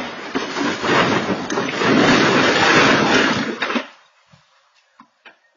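A car scraping and crashing down a steep, brush-covered embankment: a loud, rough noise that swells, then stops abruptly just under four seconds in, followed by a few faint knocks.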